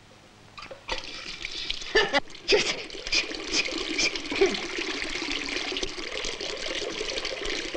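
Water from a washbasin tap gushing into the basin, starting about a second in and then running steadily, with a couple of sharper splashes or knocks about two seconds in.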